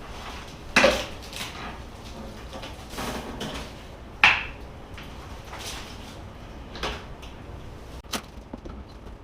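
Irregular knocks and clatter of hand demolition work on a plaster wall, with two sharp loud impacts, about a second in and just after four seconds, and lighter knocks and rattles between.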